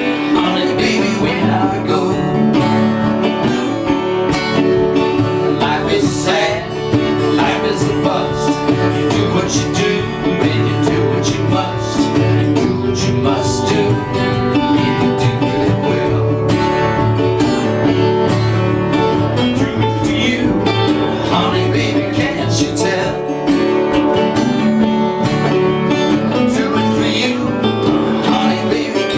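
Acoustic guitar playing an instrumental passage of a folk-rock song, steady plucked chords and notes with no singing.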